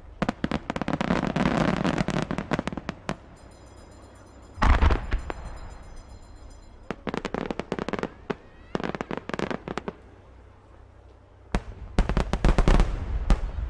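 Fireworks going off: clusters of rapid sharp crackling pops, with a loud boom about five seconds in and a dense, loud run of crackles near the end.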